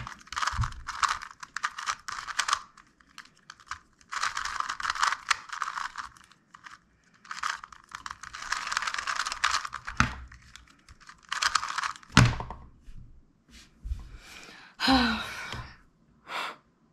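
Dayan Tengyun M magnetic 2x2 speed cube being turned fast by hand: runs of rapid plastic clicking broken by short pauses, with a few dull thumps as it is handled. Near the end comes a short sound that falls in pitch, then the cube is set down.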